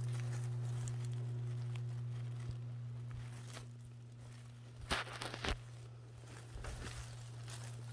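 Rustling and crackling of forest undergrowth during mushroom picking, with two sharp snaps about five seconds in, over a steady low hum.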